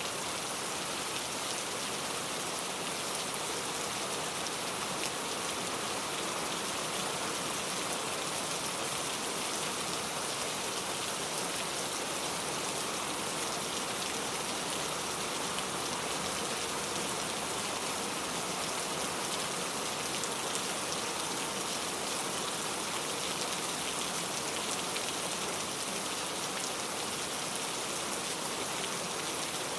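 Steady rain falling, a dense, even patter of raindrops.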